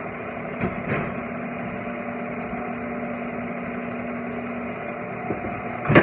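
A steady machine hum with one constant low tone, broken by two small clicks about a second in and a sharp click near the end.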